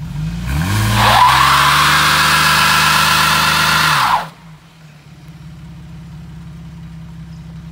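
Jeep Liberty engine revving hard against the held brake in a brake-stand burnout, wheels spinning on the asphalt. The engine climbs in pitch over the first second, then holds at high revs under a loud hiss of tyre spin for about three seconds. About four seconds in the revs cut off suddenly and the engine drops back to a steady idle.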